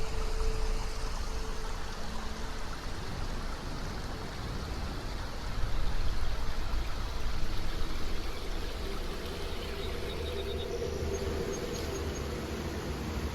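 Running water flowing steadily, like a forest creek, briefly louder about halfway through.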